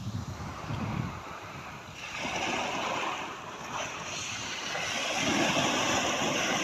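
Sea waves washing in and drawing back, the surf rising in two swells, with wind rumbling on the microphone near the start.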